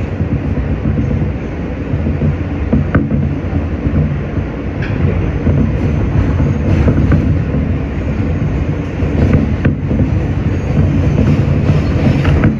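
R160B Siemens subway train running steadily along the line, heard from inside the car. There is a continuous rumble of wheels on rail, with a few sharp clicks scattered through it.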